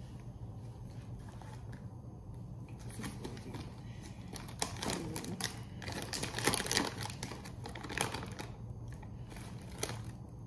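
Plastic food packaging crinkling and crackling as it is handled, a run of rustles starting about three seconds in and busiest in the middle, over a low steady hum.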